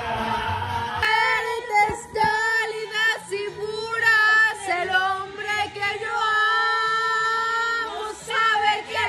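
A young woman singing a Spanish-language song with strong feeling, her voice coming in clearly about a second in and holding one long note near the end.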